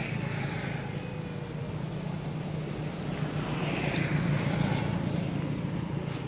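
A steady low hum of an engine running, with a rustling hiss about four seconds in.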